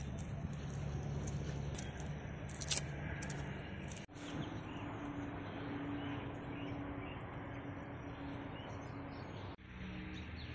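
Outdoor background noise with a steady low hum and faint bird chirps. During the first four seconds, light crisp clicks come from dry onion skin being peeled off with a knife. The hum changes pitch abruptly about four seconds in and again near the end.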